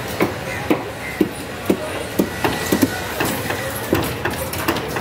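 Large knife chopping crosswise through a whole seer fish on a wooden block. Short sharp knocks as the blade strikes through the fish into the board, about two a second.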